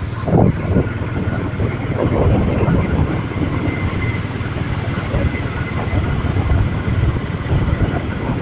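Steady low rumble of a vehicle moving along a road, engine and road noise running evenly without a break.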